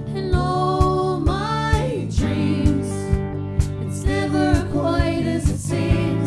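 Live rock band playing: vocals sung over electric bass, electric guitar and a drum kit keeping a steady beat.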